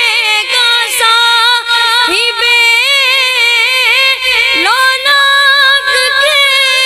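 A boy singing an Urdu naat unaccompanied into a microphone in a high voice. He holds long notes with wavering ornaments and slides up to a higher held note a little past the middle.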